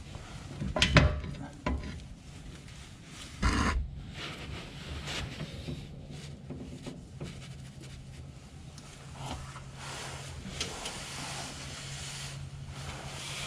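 Metal knocks and clatter as a front driveshaft is handled and taken down under a Jeep: a sharp knock about a second in, a smaller one soon after, and a clattering burst a little later. Light rubbing and scraping follow.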